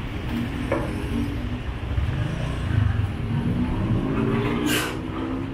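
Street traffic: a road vehicle's engine running over a low rumble, its pitch slowly rising as it pulls away, with a short hiss of air near the end.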